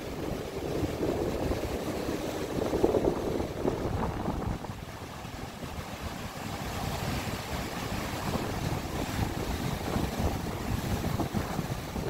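Ocean surf breaking and washing up a sand beach: a continuous rush of foaming water that swells and eases as the waves come in.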